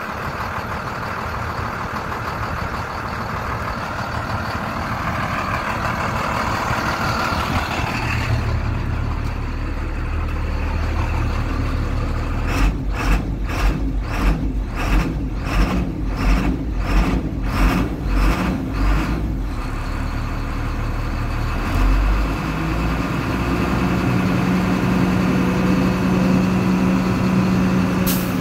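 IC school bus running: a low engine drone that comes in strongly about a third of the way through, a regular pulsing of about ten beats, roughly one and a half a second, in the middle, and a steady hum near the end.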